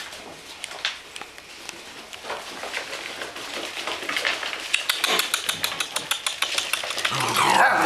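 Malamute puppies' claws and paws clattering on a hard wooden floor as they race around: scattered clicks at first, then a dense rapid patter from about halfway through. A short whine-like sound comes near the end.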